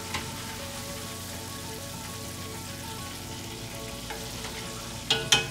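Deep-frying calamari: vegetable oil sizzling steadily in the pot as pieces are lifted out with a slotted skimmer. A few sharp knocks come near the end.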